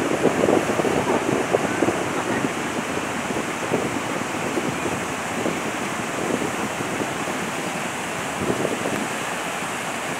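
Steady rush of water pouring down a dam's 22 open spillway gates, with wind buffeting the microphone now and then in the first couple of seconds.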